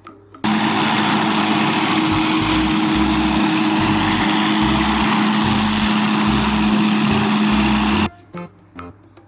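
MD 500-series light helicopter hovering: its turbine and rotor make a loud, steady hum with a hiss over it. The sound cuts in about half a second in and cuts off abruptly about a second before the end.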